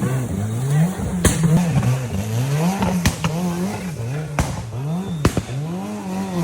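Off-road race car's engine revving up and down over and over as the throttle is worked, with several sharp knocks in between.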